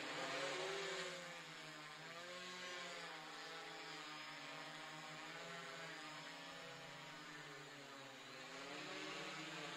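Motor and propeller buzz of a VTOL fixed-wing model plane in forward flight overhead. The pitch wavers up and down as it flies, loudest about half a second in.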